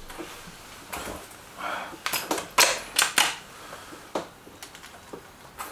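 Break-barrel air rifle being handled: a string of sharp mechanical clicks and knocks, the loudest about two and a half seconds in.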